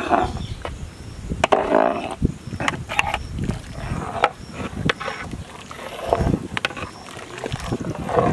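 A long-handled metal skimmer ladle stirring a big pot of soup: liquid sloshing and swirling in surges, with irregular clinks and knocks of the ladle against the metal pot.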